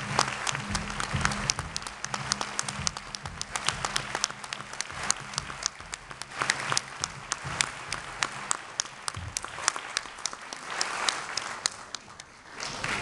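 Audience applauding, the claps thinning out near the end, over background music with a low bass line that fades out about two-thirds of the way through.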